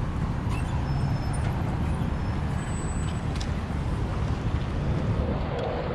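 Steady low rumble of road traffic and running vehicle engines.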